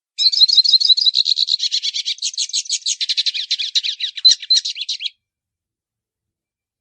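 Hooded siskin (pintassilgo) singing the 'baianinho' style of song: a long, fast, unbroken twitter of rapid high chirps and trills that stops abruptly about five seconds in.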